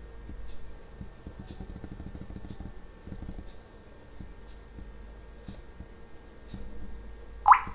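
Faint scattered computer-keyboard clicks over a low rumble, then a short, sharp rising squeak near the end, the loudest sound.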